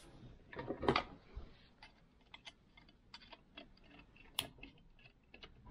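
Small scattered clicks and light scraping of a thin metal pick against a chainsaw muffler and its backing plate as the holes are lined up, with a louder handling scrape just under a second in.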